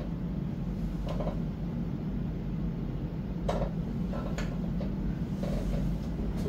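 Steady low hum of room noise, with a few soft knocks and rustles about a second in and again around three and a half to six seconds in as the organist shifts at the Electone console and on its bench.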